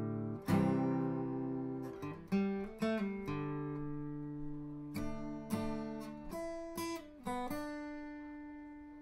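Acoustic guitar music: plucked and strummed chords, each ringing out and fading before the next.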